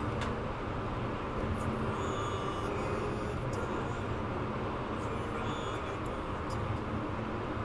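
Steady road and tyre noise heard from inside a car cruising at highway speed.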